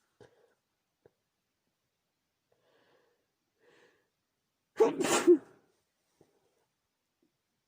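A woman sneezes once, loudly, about five seconds in, after a few faint sounds. The sneeze is set off by chhikni, a sneezing powder.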